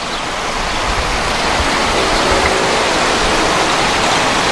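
Water rushing and splashing over rocks into a shallow river, with a steady hiss that grows louder over the first second or so and then holds.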